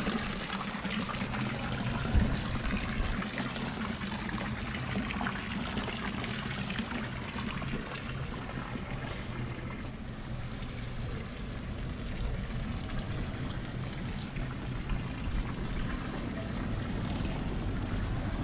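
Water from a public fountain's spout pouring into its basin, a steady splashing that fades over the first half, leaving a steady low street rumble. A single sharp knock about two seconds in.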